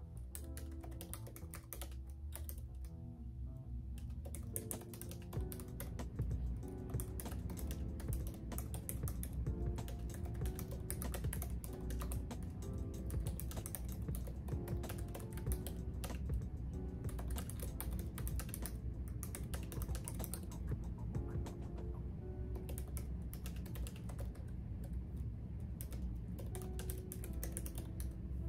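Fast, irregular typing on a computer keyboard, key clicks coming in quick runs with short pauses, over soft background music.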